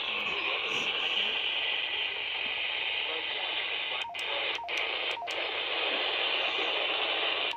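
Steady hiss of static from a radio receiver tuned to a weak NOAA Weather Radio signal, between broadcast messages. It breaks off briefly three times, about half a second apart, roughly four seconds in.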